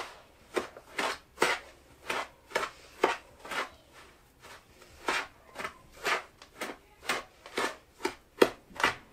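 A spoon scraping and knocking around a mixing bowl in short, uneven strokes, about two a second, as butter and sugar are creamed together by hand.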